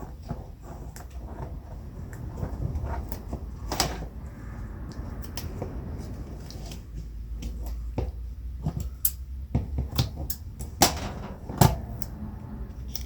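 Paper crafting by hand: cardstock being handled and the backing peeled off pieces of double-sided tape, giving scattered light taps, clicks and rustles, with two sharper knocks near the end, over a low steady hum.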